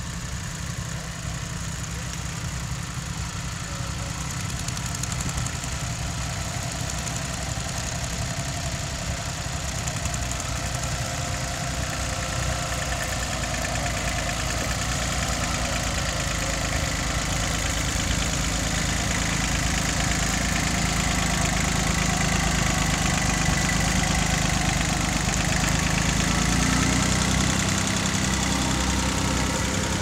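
Small compact tractor's engine running under load as it pulls a plough through stubble, growing steadily louder as it comes closer.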